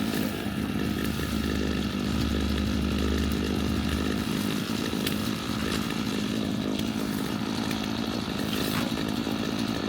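Chainsaw engine running steadily, its deep low hum falling away about four seconds in while the engine keeps going.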